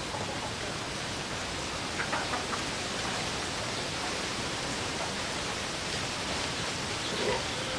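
Steady, even hiss of dense rainforest background noise, with a few faint brief sounds about two seconds in and again near the end.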